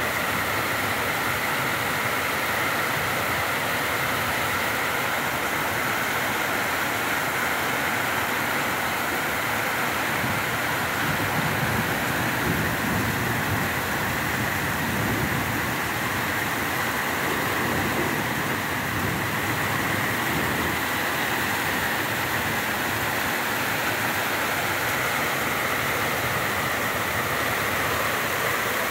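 Heavy rain pouring down, a steady, even hiss of water.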